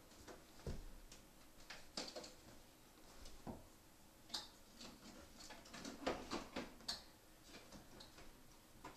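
Faint, irregular clicks and light knocks of small parts being handled on a flat-screen TV's opened back during reassembly, with a quick run of taps about six seconds in.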